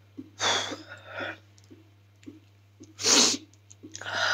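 Crying: four sharp, noisy sniffs and sobbing breaths through the nose, the loudest about three seconds in.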